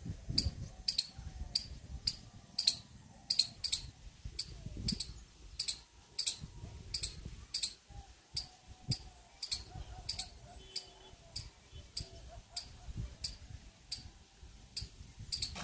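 An insect chirping in an even, steady rhythm, about two short high-pitched chirps a second, over a low rumble.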